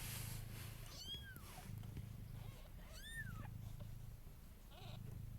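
Cats purring in long pulses with short breaks, as kittens nurse, while kittens give high mews, two arching cries about one and three seconds in and a shorter one near the end.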